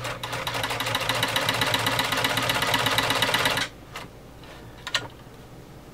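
Omega 307 sewing machine running under power, stitching through three layers of thick leather: a fast, even clatter of the needle mechanism that stops suddenly a little over halfway through. A couple of faint clicks follow.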